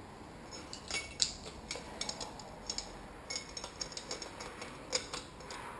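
Light, irregular metallic clicks and clinks of hand tools and motorcycle fork parts being handled, with a slightly louder clink about a second in and another near the end.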